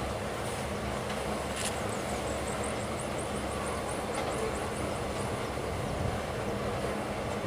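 Iron ore train rolling past: a steady rumble of wagons on the rails. A quick run of short, high rising chirps sounds from about two to five seconds in.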